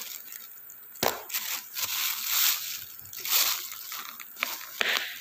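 Plastic takeaway bag and clear plastic food container rustling and crinkling as they are handled and opened, in several irregular bursts.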